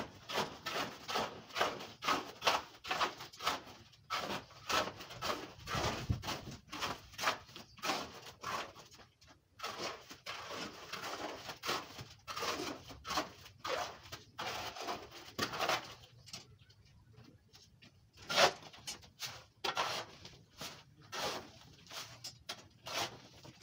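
Shovel scraping into a stone-and-sand mix and stones clattering, in quick repeated strokes about two a second that thin out after about sixteen seconds.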